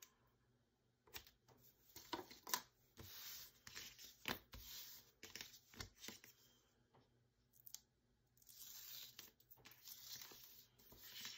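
Double-sided tape being pulled and torn from its roll and pressed onto a leather strap: faint peeling and tearing with light ticks and rustling as the strap is handled.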